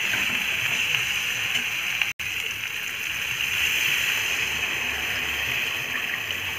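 Water poured in a steady stream from a jug into a kadai of fried, masala-coated potatoes, splashing into the pan, with a metal spatula stirring. The water goes in once the masala has been fried down and the oil released, to make the thin curry gravy. The sound cuts out for an instant about two seconds in.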